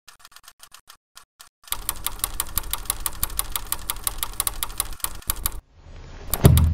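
Rapid mechanical clicking, sparse at first, then dense and joined about two seconds in by a low steady hum; the hum and clicks break off shortly before a louder low swell near the end.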